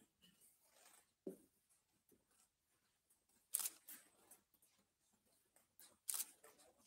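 Near silence: room tone broken by three faint, short sounds, a dull thud about a second in and two sharp clicks or rustles later on.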